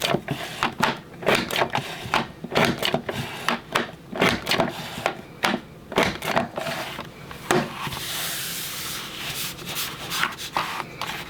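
Repeated irregular clicks and knocks of a Creative Memories Border Maker cartridge punching through scrapbook paper. About eight seconds in they give way to a couple of seconds of paper rubbing and sliding.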